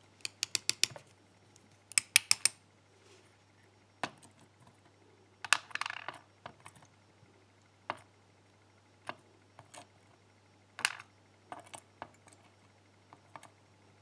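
Small metal clicks and taps as the pin springs of a Ruko euro-cylinder lock are tipped out of the cylinder housing onto a plastic pin tray, in two quick runs of clicks within the first few seconds. Then scattered single clicks and short rattles as tweezers pick up the springs and set them into the tray.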